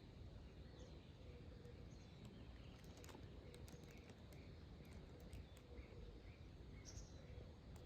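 Near silence: faint outdoor background with small, scattered high chirps and a cluster of faint light clicks between about three and five seconds in.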